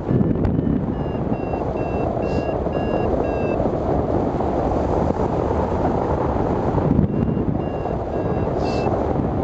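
Airflow rushing over the microphone of a hang glider in flight, with a hang-gliding variometer sounding short, even high-pitched beeps, roughly two or three a second, in two runs: one starting near the beginning and lasting about three seconds, another near the end. The beeping is the variometer signalling that the glider is climbing in lift.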